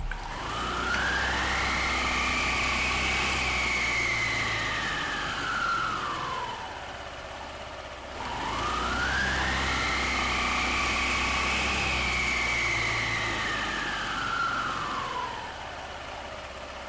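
Scooter engine and exposed belt-drive CVT revved up and back down twice. A whine climbs and falls with the revs, about eight seconds per cycle. As the revs rise, the front drive pulley's rollers fly out and squeeze the belt, changing the gear ratio.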